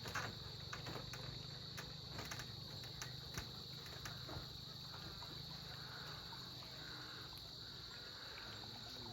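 Steady high-pitched chorus of insects trilling at dusk, with faint scattered bird calls from the roosting colony in the second half and a low steady hum underneath.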